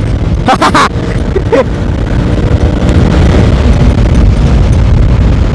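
Heavy wind buffeting and rushing on the microphone of a TVS Apache 160 4V motorcycle accelerating hard, gaining from about 86 to 110 km/h.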